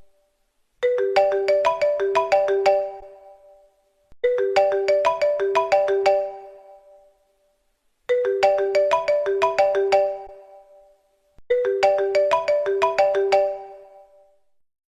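Apple iPhone ringtone: a short melody of quick, ringing notes played four times over, each phrase fading out before a short pause.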